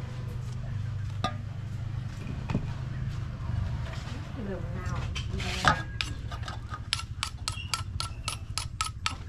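Kitchen utensil clinking and knocking against a bowl as boiled vegetables are mixed into the seasoning. Scattered knocks at first, then a quick regular tapping with a ringing note, about four strikes a second, over the last few seconds.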